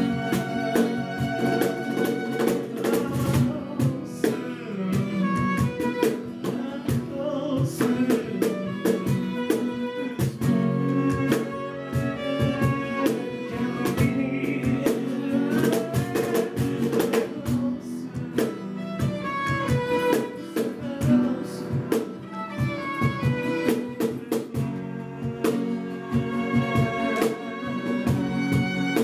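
Live acoustic trio playing without vocals: a violin carries the melody over a strummed guitar, with a cajón beating out a steady rhythm.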